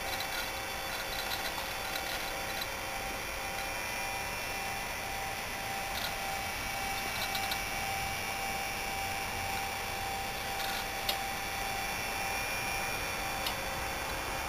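Steady hum and fan noise of running computer equipment, with a few faint ticks and clicks, one a little louder about eleven seconds in.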